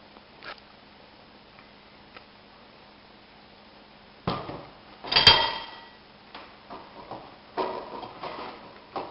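A plastic squeeze bottle knocked down onto a wooden table about four seconds in, then a sharp clink with a short ring as a metal fork strikes a ceramic plate. Several lighter knocks and scrapes of the fork cutting pancakes on the plate follow.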